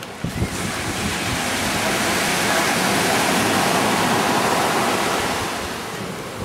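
Ocean surf rushing, swelling over a few seconds and easing off near the end.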